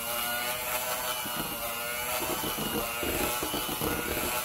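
Electric hand mixer running steadily with a buzzing motor whine, its beaters churning thick cake batter in a glass bowl.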